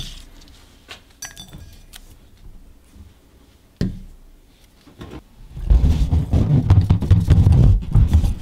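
A few light knocks and clinks as objects are picked up and set down. From about two-thirds of the way in comes a loud, uneven low rumbling rustle: an inflated latex balloon handled and rubbed right by the microphone.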